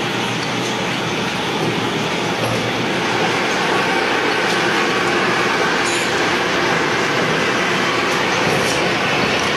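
Gas torch flame burning steadily, a constant loud rushing hiss, with a few faint light ticks.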